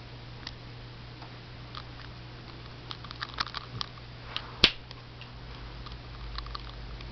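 Scattered light clicks and taps, bunched about three seconds in, with one sharp click, the loudest sound, about four and a half seconds in, over a steady low hum.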